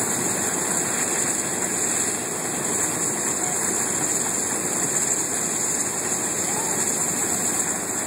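Fire hose fog streams spraying water onto a burning propane tank: a steady, even rushing noise with a strong high hiss, the spray and the propane fire running together.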